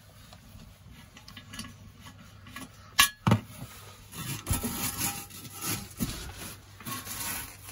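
Knocks and scraping as a ceramic toilet pan is handled and shifted. There are two sharp knocks about three seconds in, then irregular rubbing and scraping.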